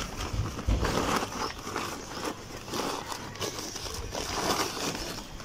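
Woven plastic sack rustling and crinkling as it is spread out and pressed down by hand, in short irregular bursts with a few soft handling thumps.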